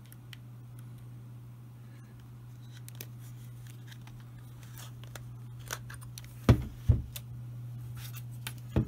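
Small clicks and clacks of a metal M42-to-Nikon lens adapter being handled and taken off a Nikon DSLR's bayonet mount, with two sharp clacks about six and a half and seven seconds in and another near the end, over a steady low hum.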